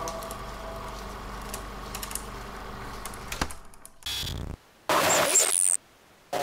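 The soundtrack's last notes fade out, then a logo-sting glitch effect comes in: a low hit followed by short bursts of harsh static that cut in and out abruptly, one carrying a high rising whine.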